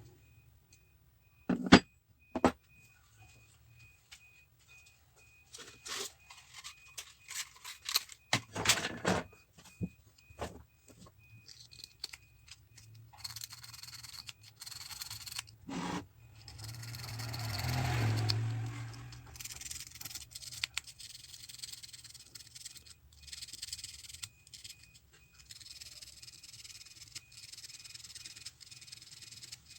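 Scattered clicks, taps and scrapes of metal tools and parts being handled, loudest near the start, with a rushing noise that swells and fades about halfway through.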